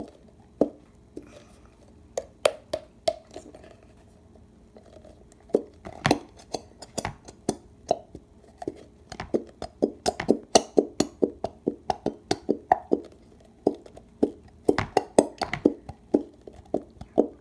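A small plastic squeeze bottle of glitter glue being squeezed by hand, the thick glue spluttering out with irregular short, sharp pops and clicks. The pops come only now and then at first, then several a second in the second half.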